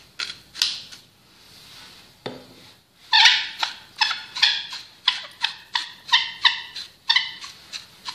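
Handheld spice mill being twisted to grind black pepper: a few scratchy strokes, a single knock, then from about three seconds in a steady run of rasping, squeaky grinding strokes, roughly two a second.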